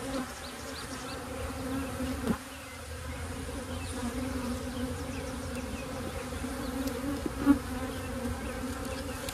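Honeybees buzzing in the air around an open hive, a steady hum. Two brief knocks cut through it, about two seconds in and near the end, the second the loudest.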